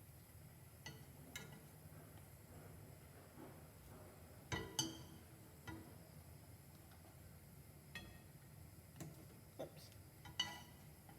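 Dishes and utensils clinking: about nine light, scattered clinks, the loudest a quick pair near the middle and one near the end.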